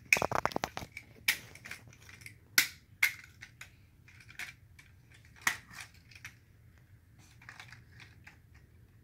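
Hard plastic parts of a Tobot V transforming toy robot clicking and snapping as they are twisted and pressed into place: a quick rattle of clicks at the start, then single snaps every second or so, fainter and sparser toward the end.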